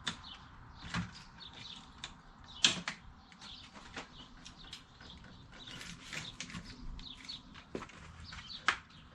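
Scattered clicks and knocks of bicycle parts and tools being handled while a BMX bike is assembled, the loudest knock about three seconds in, with short high chirps in between.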